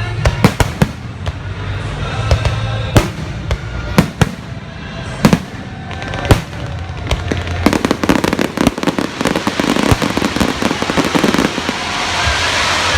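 Fireworks display: separate sharp bangs of shells bursting every second or so for the first seven seconds, then a dense crackle of many small rapid pops that grows louder toward the end.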